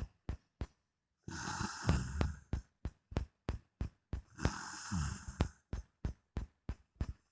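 A man snoring: two long snores about three seconds apart, over a fast, steady ticking of sharp clicks.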